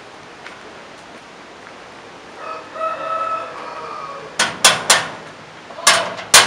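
A rooster crowing about two and a half seconds in, then a sheet-metal gate banged three times in quick succession, with two more bangs near the end.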